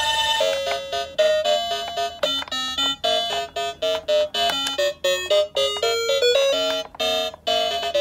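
Toy ambulance's electronic sound chip playing a quick beeping melody of short bright notes, taking over from its two-tone hi-lo siren, which stops about half a second in.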